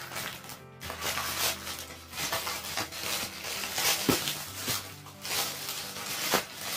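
Plastic mailing bag rustling and crinkling in irregular bursts as hands handle it, over quiet background music.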